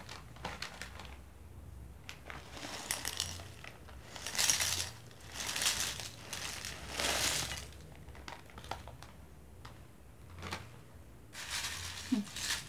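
Plastic snack packet crinkling as it is opened and shaken, and light puffed crackers pouring and rattling into a glass bowl in several short bursts. Near the end, hands rummage through the crackers in the bowl.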